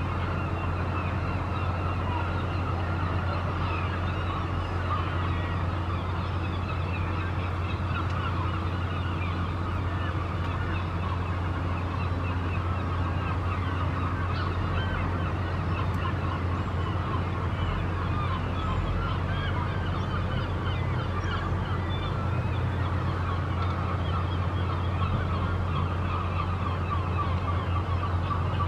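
Many birds calling continuously in short chirps and honks, over a steady low hum.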